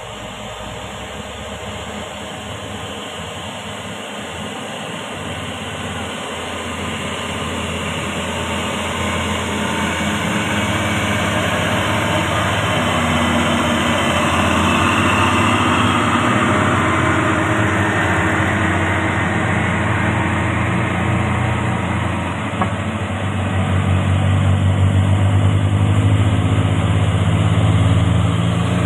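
Diesel engines of loaded cargo trucks pulling up a climb, growing steadily louder as they approach. The first truck passes about halfway through with a broad rushing sound. Near the end a Hino truck's engine comes closest, with a strong, low, even engine note.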